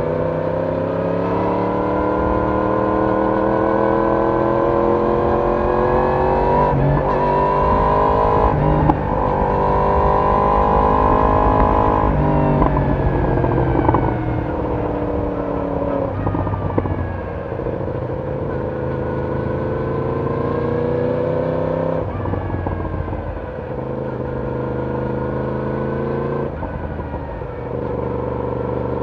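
Yamaha YZF-R1 inline-four engine and exhaust under way, pulling up through the gears. The pitch climbs steadily and dips briefly at each upshift, about 7 and 9 seconds in. Around 12 seconds in it drops away as the throttle closes, then builds again before falling off near 22 and 27 seconds.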